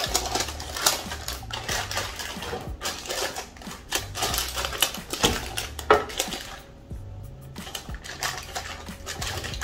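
Parchment paper rustling and crinkling with light clicks and knocks of kitchen utensils, irregular and continuous apart from a brief lull about seven seconds in. Faint background music with a low bass line runs underneath.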